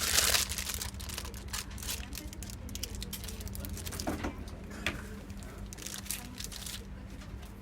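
Small clicks and taps of a replacement 2.5-inch hard drive and its screws being handled and fitted into a laptop, with two sharper clicks about four and five seconds in, over a steady low hum.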